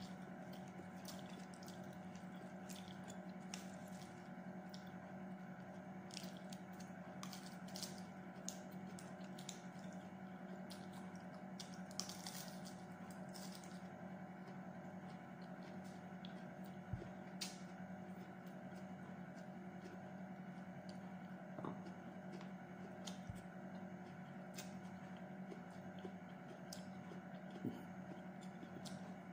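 Soft mouth sounds of hand-eating: wet chewing and squishing, with small clicks and crackles as the food is picked up with the fingers, mostly in the first half. A steady low hum runs underneath.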